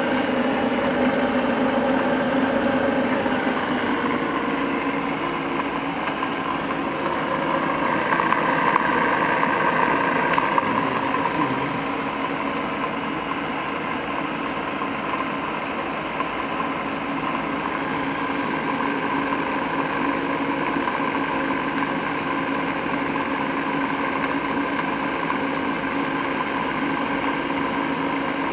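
Standard Modern 1333 gear-head lathe running, its spindle turning and its carriage moving under power feed: a steady gear whine and motor hum, a little louder about eight to ten seconds in.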